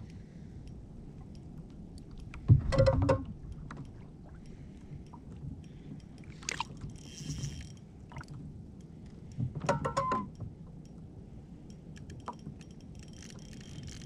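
Spinning fishing reel being worked while playing a fish from a plastic kayak: small metallic reel clicks, a couple of louder clusters of knocks and bumps against the kayak about two and a half seconds in and again around ten seconds in, over a low background of lapping water.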